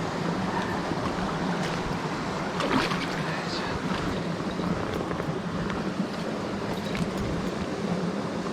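Steady rush of a mountain stream's flowing water, with a brief louder moment about three seconds in.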